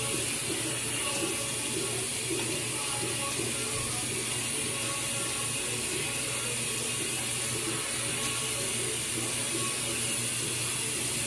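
Bathroom tap running steadily into a sink while the face is rinsed with water.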